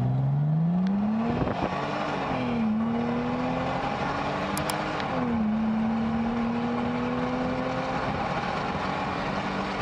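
Mercedes-Benz SLK 32 AMG's supercharged 3.2-litre M112 V6 at full-throttle acceleration, heard from inside the cabin. Its pitch climbs steadily and drops twice as the five-speed automatic upshifts, about two and a half and five seconds in.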